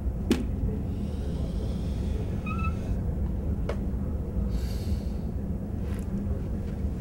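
Dry-erase marker on a whiteboard: a tap as it meets the board and a brief squeak as a tally stroke is drawn, with sharp clicks about a third of a second and three and a half seconds in, over a steady low hum.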